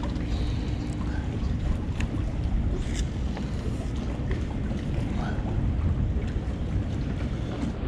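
Wind rumbling on the microphone over water lapping at a small fishing boat, with a few faint clicks.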